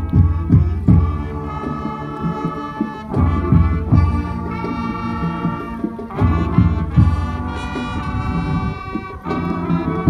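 Marching band playing: brass sections holding loud chords over repeated low drum hits, with fresh brass swells entering about three and six seconds in.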